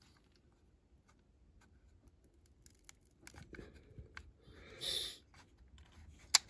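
Quiet room for the first few seconds, then faint handling noises as a die-cast toy car is turned over in the fingers: a short scratchy rustle about five seconds in and a sharp click near the end.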